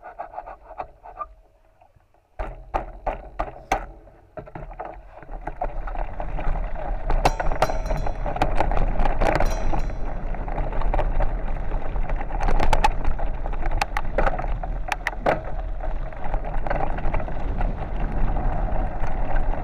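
Bicycle rolling along a gravel track: tyres crunching over loose stones and the bike rattling as it jolts over bumps, with heavy wind buffeting on the microphone that builds from a few seconds in.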